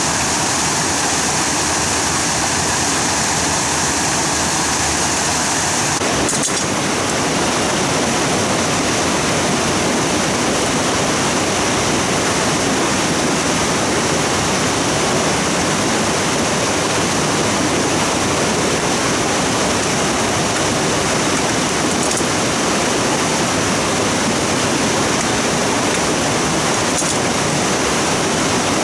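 Stream water rushing steadily, a loud even hiss and splash of fast-flowing water; its tone shifts slightly about six seconds in.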